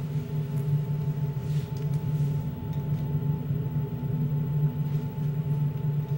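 Steady low humming drone made of several held tones, wavering slightly, with a thin higher tone sustained above it.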